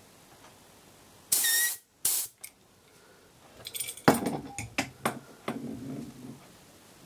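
Two short blasts of compressed air, about a second and a half in and again just after two seconds, the first with a faint whistle, blowing old lubricant out of the moving part of a LEGO pneumatic switch. A couple of seconds later come rustling and small clicks as the part is handled and wiped in a cloth.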